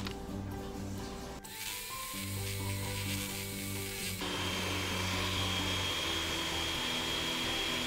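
Electric hand mixer starting up about a second and a half in and beating flour into cake batter, growing louder with a steady high whine from about four seconds in. Background music plays throughout.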